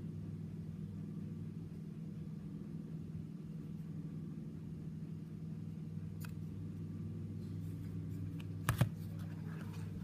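Steady low background hum, with a few faint ticks and a sharp double click close to nine seconds in as a chrome Zippo lighter's metal case is handled.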